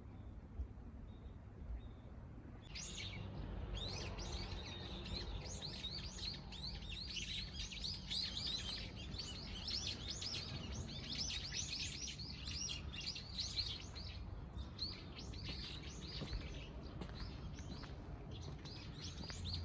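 Many small birds twittering and chirping in rapid, overlapping calls, starting about three seconds in and keeping on without a break, over a low, steady rumble.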